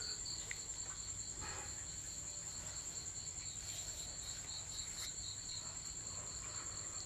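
Faint high-pitched trill: a steady thin tone with a lower pulsing tone beneath it that stops a little after five seconds in, over low background noise.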